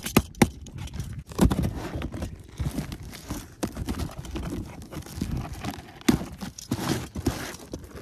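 A utility knife slitting the packing tape on a cardboard shipping box: tape tearing and cardboard rustling, with scattered sharp clicks and taps as the blade and flaps catch.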